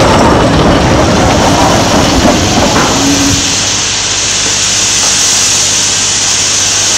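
Train moving slowly past: a loud, steady running noise with hiss, which loses its deep part about three and a half seconds in.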